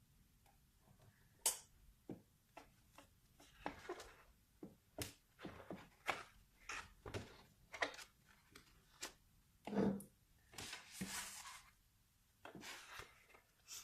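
Close-miked ASMR trigger sounds from an object being handled: an irregular run of small clicks and taps, with two short rustling swishes near the end.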